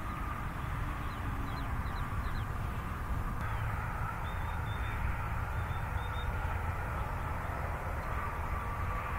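Steady road traffic noise from a nearby highway, a continuous rumble and hiss of passing cars. A bird chirps faintly and high a few times, about a second in and again around the middle.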